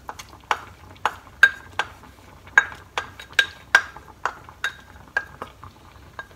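Wooden spatula knocking and scraping against a ceramic bowl as chopped herbs are scraped out of it into a pot: about two sharp knocks a second, many leaving a short high ring from the bowl.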